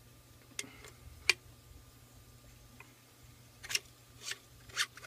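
Metal parts of a Cricket PCP air rifle clicking, knocking and scraping as the air cylinder is handled and slid into the rifle's frame: about half a dozen short sharp clicks, the sharpest a little over a second in, with a quicker run of them near the end.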